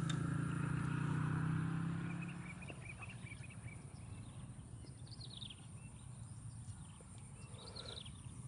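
A steady low hum that fades out about two and a half seconds in. After it come faint bird chirps: a quick run of short notes, then two falling twittering clusters.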